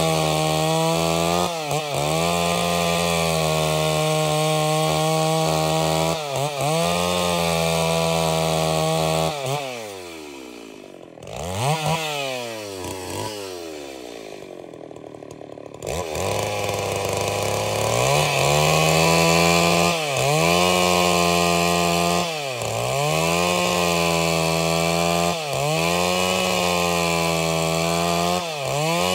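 Stihl MS381 two-stroke chainsaw ripping a log of red angico lengthwise into boards, running at high revs under load. Its engine speed dips briefly every couple of seconds as the cut bites. About ten seconds in the engine eases off to a low run for several seconds, with one short rev, then climbs back to full throttle.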